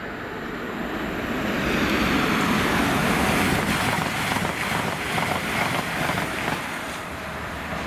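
A train passing through the station at speed: a rushing noise that builds over the first two seconds and stays loud, with a run of sharp clicks through the middle.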